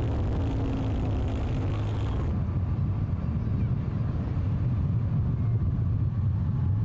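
Steady low rumble of a following motorbike's engine mixed with wind rush. About two seconds in the hiss above it drops away at a cut, leaving the low rumble.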